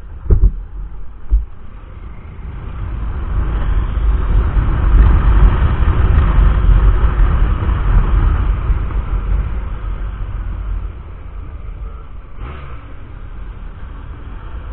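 Motorcycle on the move, with heavy wind buffeting on the microphone that swells over a few seconds and then dies down again. Two sharp thumps come just after the start.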